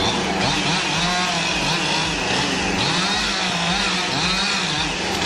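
Chainsaw cutting into a large tree trunk, its engine pitch rising and falling over and over as the saw is worked through the wood.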